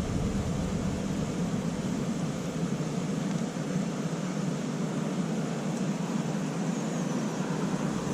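Steady rushing background noise, even in level throughout, with no distinct sounds standing out.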